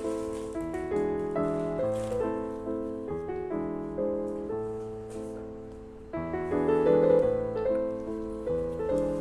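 Background piano music: a gentle melody of decaying notes, with a brief dip about six seconds in before the playing comes back louder.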